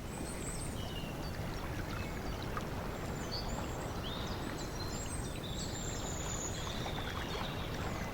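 Steady rushing sound like running water, with short high chirps scattered over it.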